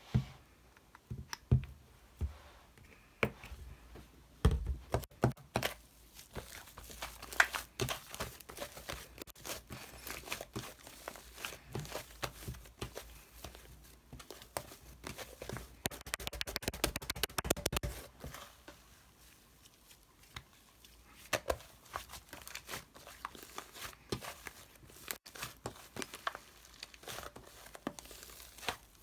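Close-up crinkling, tearing and tapping handling sounds made up of many small clicks and taps, with a dense run of crackling about fifteen to eighteen seconds in.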